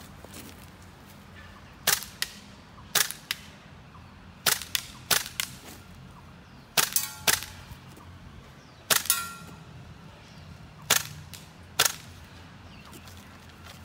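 GHK M4 gas-blowback airsoft rifle with a GBL short bolt firing about a dozen semi-automatic shots, singly and in quick pairs and triples, with short pauses between groups. One shot about two-thirds of the way in is followed by a brief ringing.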